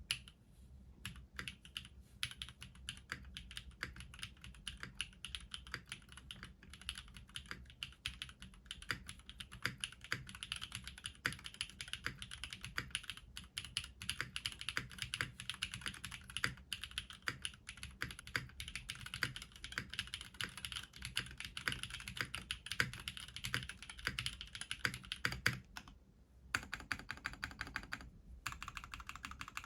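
Typing on a TGR 910 V2 ME mechanical keyboard with BCP switches (Gateron X bottom housings) on an aluminium plate: a fast, continuous run of keystroke clacks, with two short pauses near the end.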